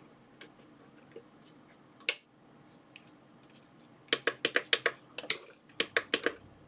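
Sharp plastic clicks of buttons being pressed on a hot air rework station: one click about two seconds in, then a quick run of about a dozen presses near the end, as the station is worked to get its hot air gun running.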